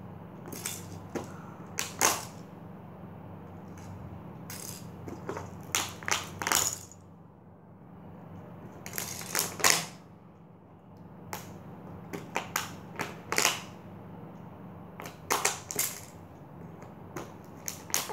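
Empty plastic water bottle crinkling and clicking in irregular bursts as a baby grabs and squeezes it, over a low steady hum.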